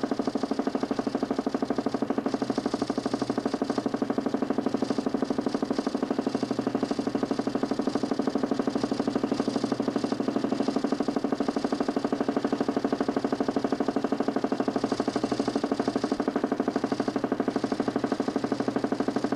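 DC motor spinning the 40 cm plywood Nipkow disc of a homemade mechanical television: a steady, loud hum with a fast, even pulsing that holds constant.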